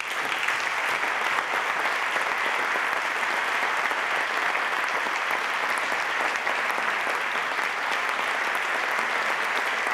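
Audience applause, many people clapping steadily; it breaks out suddenly and holds at an even level.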